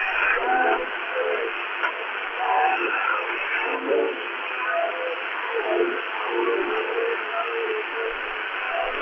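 Shortwave broadcast of LRA36 Radio Nacional Arcángel San Gabriel on 15476 kHz received in upper-sideband mode through a Tecsun PL-368's speaker: thin, narrow-band programme audio half buried in steady hiss and static from a weak long-distance signal.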